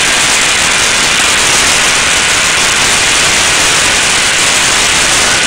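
Homemade double-walled stove running with a steady, loud rushing noise.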